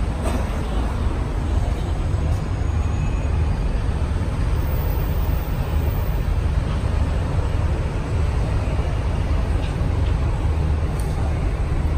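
Steady low rumble of city background noise, like distant traffic, with a few faint clicks.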